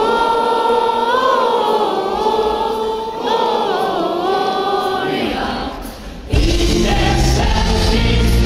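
Several voices singing together in harmony, holding long notes that slide slowly between pitches. The singing dies down near six seconds in, and a full band with heavy bass then comes in suddenly and loudly.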